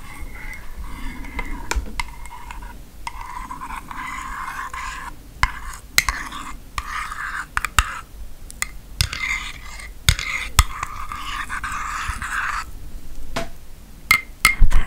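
Metal spoon stirring in a ceramic mug of hot chocolate, scraping round the inside with frequent small clinks. The stirring stops about twelve seconds in, and a few louder knocks follow near the end.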